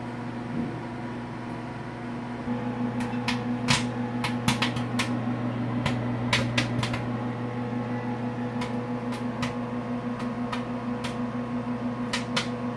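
Microwave oven running with a steady hum while popcorn kernels pop inside a film-covered glass dish. Sharp, irregular pops start about three seconds in and keep coming.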